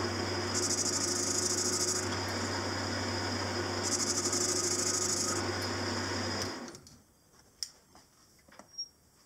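Small metalworking lathe running steadily, a motor hum with hiss and two stretches of higher hiss over it. About six and a half seconds in it spins down and stops, leaving only a few faint clicks.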